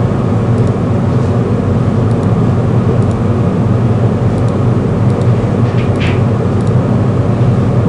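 Steady low electrical hum with hiss, the background noise of a desktop recording setup, with a few faint mouse clicks as line points are picked.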